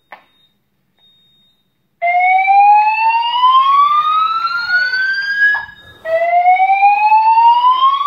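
EST (Edwards) fire alarm voice-evacuation speaker sounding the slow whoop tone. About two seconds in, a loud tone starts and rises steadily in pitch for nearly four seconds, then starts again from the bottom, with the same sweep heard echoing and slightly out of step from other speakers. A single click comes at the very start, before the tone begins.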